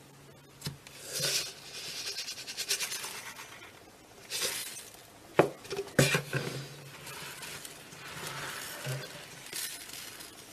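Slime being pressed and squeezed by hand, crackling and popping with many fine clicks, and two sharp snaps about halfway through.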